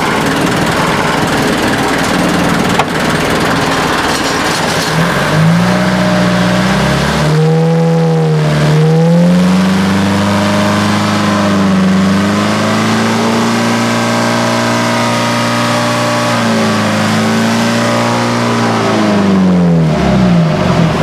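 Inboard engine of an outrigger boat, driven through a five-speed gearbox, running under way. It runs rough at first, then climbs in pitch from about six seconds in. The pitch dips and rises again as gears are shifted, holds steady, and falls away near the end.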